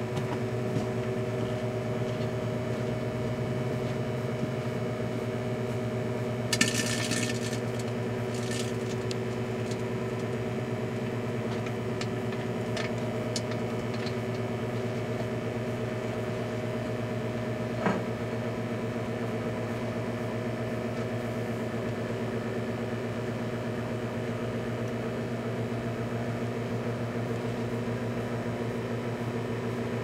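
Sunbeam microwave oven running with a steady electrical hum. A third of the way in, a brief loud crackle of sparking, followed by a few fainter crackles and, past the middle, a single sharp snap; the owner puts the sparking down to leftover bits of foil lid in the oven.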